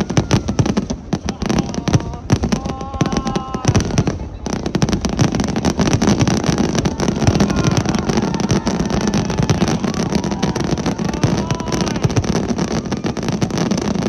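Aerial fireworks going off in a dense, continuous barrage of bangs and crackles, easing briefly about four seconds in before picking up again.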